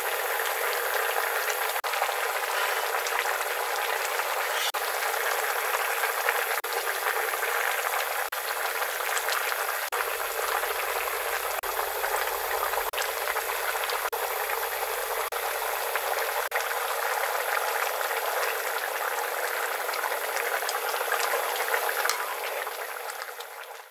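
Kimchi stew boiling hard in a pot, a steady bubbling that fades out near the end.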